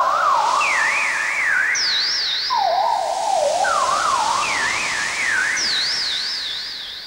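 Electronic soundtrack of warbling tones: short phrases in which a tone swoops up and down in pitch about three or four times a second, entering one after another at several pitches from low to high and overlapping, over a steady hiss. It fades down near the end.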